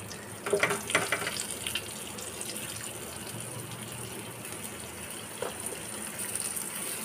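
Flour-coated chicken pieces sizzling steadily in hot frying oil, with a few short sharper sounds in the first two seconds as more pieces are laid in.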